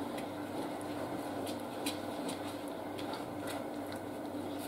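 Silicone spatula stirring hot berry purée in a stainless saucepan, with scattered soft ticks and scrapes against the pan, over a steady low hum.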